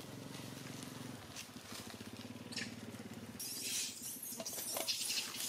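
Macaques scrabbling and rustling over dry leaves and rocks, with scattered sharp clicks, growing louder about three and a half seconds in. A low steady hum runs underneath in the first half.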